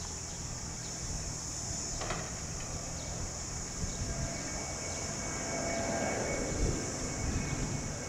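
Distant Boeing 737-300 freighter's CFM56 jet engines on final approach: a low, steady rumble that grows slightly louder as the aircraft nears, under a constant high hiss.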